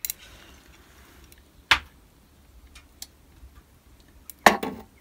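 Metal ladle clinking and knocking as slag is skimmed off molten pewter in an electric melting pot. Scattered light ticks, one sharper knock about a second and a half in and a louder one near the end.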